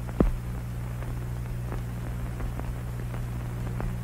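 Steady low hum and hiss of an old optical film soundtrack, with faint scattered crackles and one sharper click just after the start.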